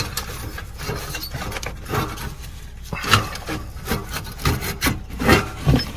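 A diesel exhaust brake unit being worked loose and pulled out of its exhaust pipe: metal parts scraping, rubbing and knocking against each other in irregular strokes.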